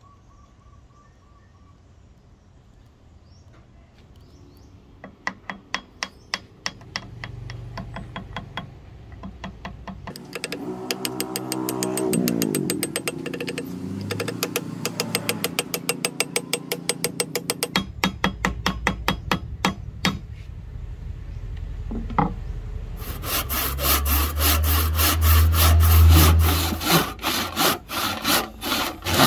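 Wood being cut by hand with rapid back-and-forth strokes, about three a second. The strokes start a few seconds in and grow louder and denser in the last few seconds.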